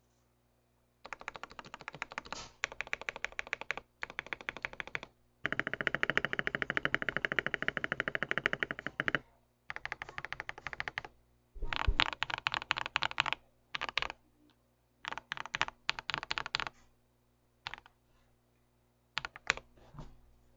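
Typing on a RAKK Ilis mechanical keyboard with PBT keycaps and lubed Akko Radiant Red linear switches. The keystrokes come in fast bursts with short pauses; the longest, densest run is about five to nine seconds in, and a few single key presses come near the end.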